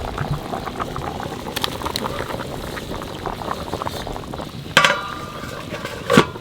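Pot of chicken curry boiling, bubbling and crackling steadily, with two sharp metal clanks near the end.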